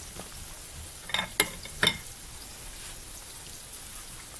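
Oil sizzling steadily in a frying pan, with three short sharp taps a little past a second in.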